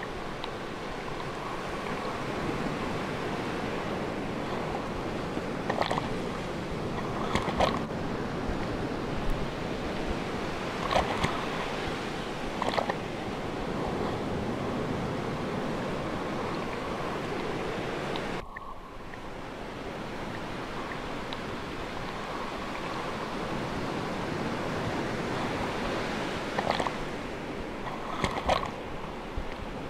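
Sea waves and surf washing steadily, with a few short, sharper splashes in pairs every several seconds.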